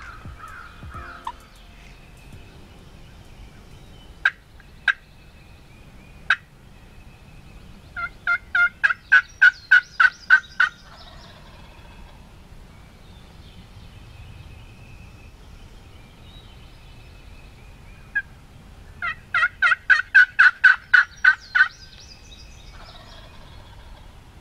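Loud turkey calling. A few single notes come first, then a fast run of about a dozen yelping notes at roughly four a second, and a second run like it in the second half.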